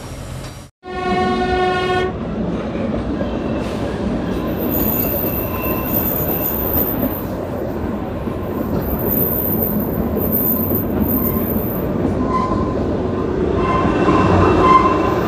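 Kalka–Shimla narrow-gauge toy train: its horn sounds once for about a second, just after a second in, then the steady running noise of the train on the track, heard from a carriage. Some wheel squeal comes in near the end.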